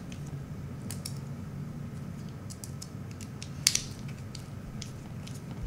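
Light, scattered clicks and ticks of a small screwdriver working the screws of a metal XLR connector body, with one sharper click about three and a half seconds in.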